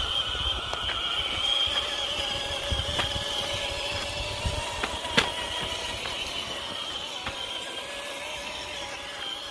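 Electric motor and gearbox of a Traction Hobby Jeep Rubicon RC rock crawler whining steadily as it crawls over loose rocks, with scattered clicks of stones and tyres and one sharper knock about five seconds in. Wind rumbles on the microphone, mostly at the start.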